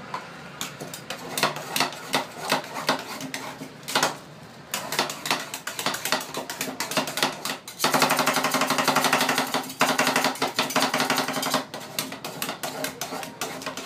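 Two metal spatulas chopping and scraping ice cream mix on the frozen steel plate of a rolled ice cream stand, making a string of sharp clacks. About eight seconds in, the clacks run together into rapid chopping for three or four seconds, then slow again.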